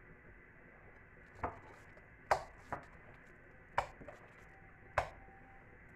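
Soft tart dough being mixed by hand in a glass bowl, with five irregular sharp knocks of hands against the glass over a faint background.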